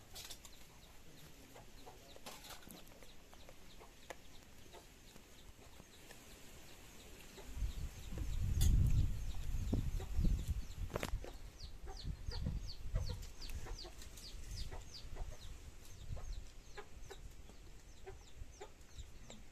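Chickens clucking and calling in short, quick repeated notes, busiest in the second half. A low rumble rises over them for about three seconds a third of the way in and is the loudest sound.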